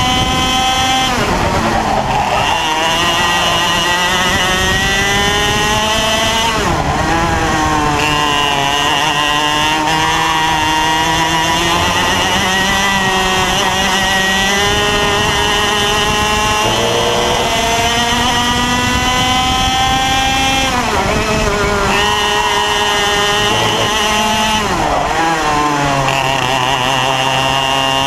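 X30 Junior 125cc two-stroke kart engine at racing speed, its pitch climbing steadily as it revs out, then dropping sharply off the throttle several times, about a second in, near 7 s, 17 s, 21 s and 25 s, before climbing again.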